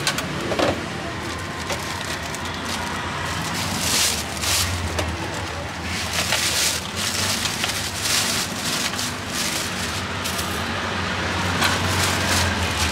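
Takoyaki sizzling in a hot griddle pan, with hissy surges every second or two over a steady low hum.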